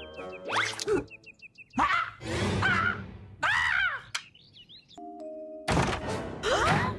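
Animated cartoon soundtrack: wordless character squeals and shrieks over comic music, with a short held chord about five seconds in.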